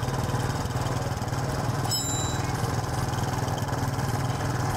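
A small engine running steadily in the background with an even, fast throb. A short high chirp sounds about two seconds in.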